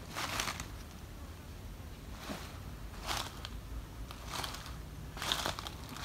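Footsteps crunching through dry leaf litter on a forest floor: five uneven steps, roughly one a second.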